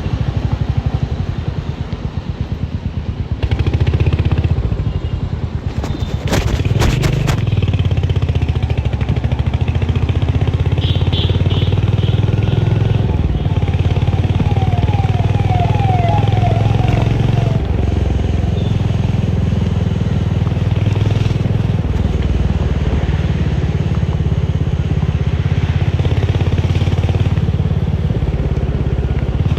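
Royal Enfield Hunter 350's single-cylinder engine thumping through its exhaust while riding. It eases off briefly near the start, then picks up again. There is a short clatter about six seconds in.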